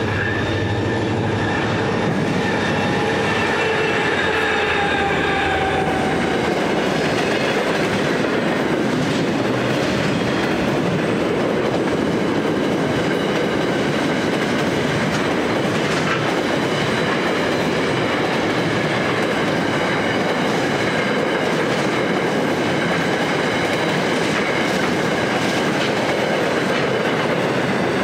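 Freight train passing at speed: the twin diesel locomotives go by in the first few seconds, their engine note dropping slightly in pitch, then a long rake of container wagons rolls past with steady wheel-on-rail noise and clickety-clack over the rail joints.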